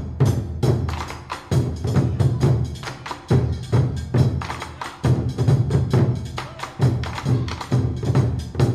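Background music with a steady beat: a deep drum hit about every 0.8 s under fast, clicky percussion.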